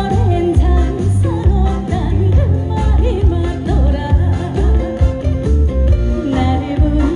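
A female trot singer singing live over backing music with a steady beat.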